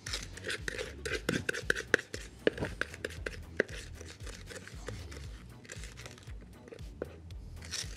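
Chocolate-coated cornflakes crunching and crackling as a spatula scrapes them out of a silicone bowl into a metal cake frame: a quick run of small clicks and scrapes, busiest in the first half.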